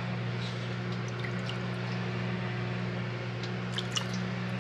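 Hands sloshing in a steel bowl of vitamin C dip and lifting out apricot halves, with faint drips and a few light ticks as the fruit is laid on a dehydrator's mesh tray. A steady low hum runs underneath.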